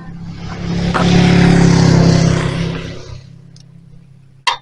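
A motor vehicle passing close by on the road, its sound rising, peaking for about a second and a half and fading away within about three seconds. A single sharp knock near the end.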